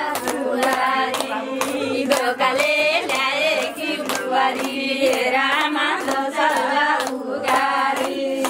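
Several people singing together with steady rhythmic hand clapping, about three claps a second, over a steady held tone.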